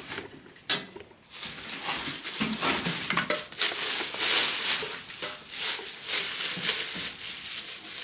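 Packaging rustling and crinkling as a new stainless steel pot and its lid are unwrapped, with a sharp knock less than a second in.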